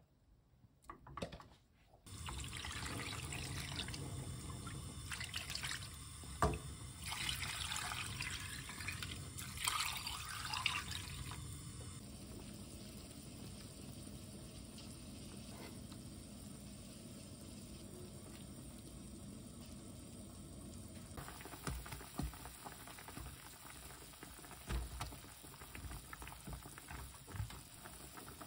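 Liquid poured into a pan of blanched pork ribs, then the dark soy braising liquid boiling and bubbling in the pan, with a few sharp knocks of a utensil against it.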